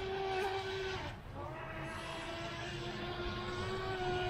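WLToys WL912-A RC speed boat's 390 brushed electric motor running at full throttle on a 2S LiPo: a steady high whine that dips briefly a little after a second in, then carries on at a slightly lower pitch.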